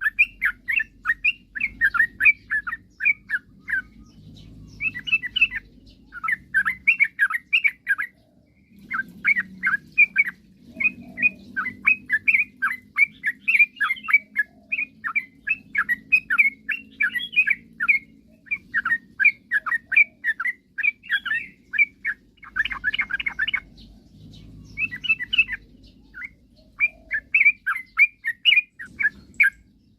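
Yellow-vented bulbul (trucukan) singing: rapid, lively phrases of quick bubbly chirps, repeated again and again with short pauses between them.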